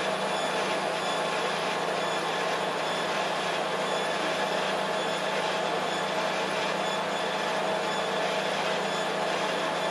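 Steady mechanical hum and fan-like noise from a 3D crystal laser engraving machine running while it engraves, with a few constant tones and no change in level.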